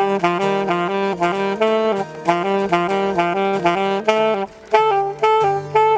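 Saxophone playing a fast run of notes over acoustic guitar accompaniment, breaking off about four and a half seconds in before starting a new phrase.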